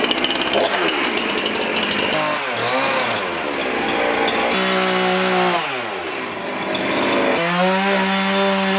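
Chainsaw cutting into a log wall. The engine pitch wavers under load, then twice holds a steady high whine and drops away as the throttle is released.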